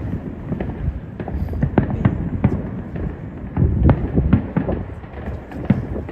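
Aerial fireworks bursting in an irregular string of sharp bangs over a low rumble, with a louder cluster of bursts a little past the middle.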